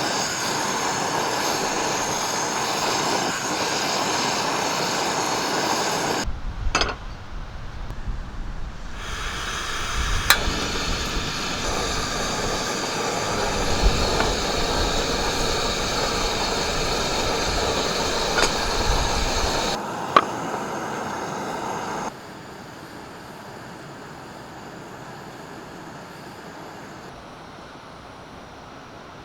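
Steady seaside wind and surf noise that changes abruptly several times, with a few sharp clinks of utensils.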